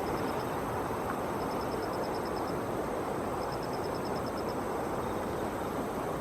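Steady outdoor rushing noise, with a high, rapid chirping of about ten short pulses lasting about a second, repeated roughly every two seconds.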